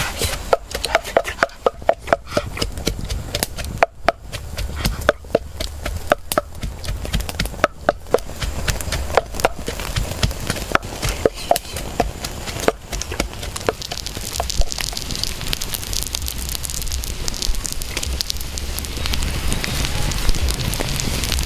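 A wooden pestle pounding in a wooden mortar: sharp, irregular knocks, two or three a second. Around halfway through, it gives way to a wood fire crackling, with a steady hiss, under fish roe grilling on a flat stone.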